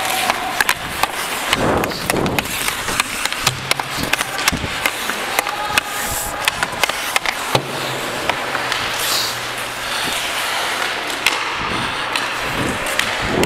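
Ice hockey skates scraping and carving on the ice, with many sharp clicks and clacks of sticks and puck.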